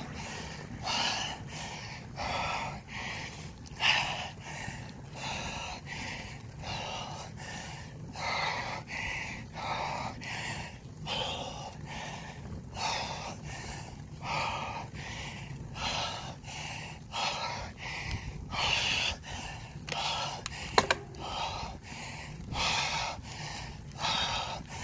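A cyclist panting hard and rhythmically, about three breaths every two seconds, from the effort of a steep climb. A steady low rumble of wind and riding noise runs underneath, and there is one sharp click late on.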